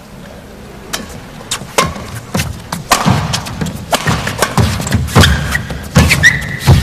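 Badminton rally: sharp racket strikes on the shuttlecock and players' footsteps thudding on the court, coming roughly every half second from about a second in and getting louder. A short high squeak sounds near the end.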